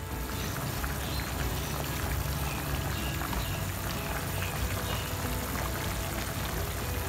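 Fish-head broth bubbling steadily in a pan at a simmer, with faint background music.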